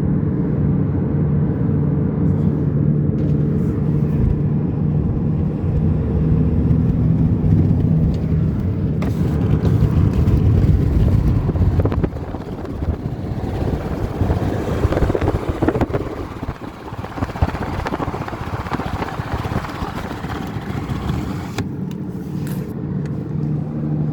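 Toyota RAV4 heard from inside the cabin while driving: a steady low hum and road noise, with the drone of a damaged rear left wheel bearing. About twelve seconds in, the low hum gives way to a broader rushing noise, and it returns near the end.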